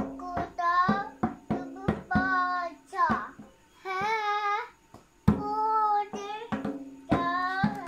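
A toddler singing a song in short phrases while slapping a djembe with his bare hands, the drum strokes coming at an uneven beat.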